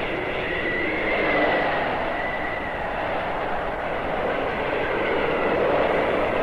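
Blizzard wind howling: a steady rush of noise that swells and eases, with a thin, wavering whistle over it.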